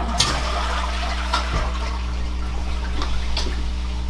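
Water running through newly installed bathroom plumbing as a fixture is turned on to test for leaks, with a steady low hum underneath and a few light knocks.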